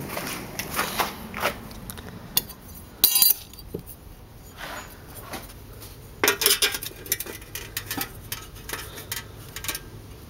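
Clinks and clatter of metal helmet parts being handled: a stainless steel salad-bowl dome and loose metal pieces knocking together, with a sharp ringing clink about three seconds in and a cluster of knocks around six seconds.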